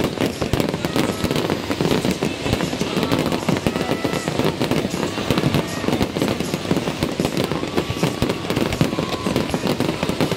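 Fireworks display going off at a steady pace: many bursts and crackling reports in quick succession, overlapping without a break.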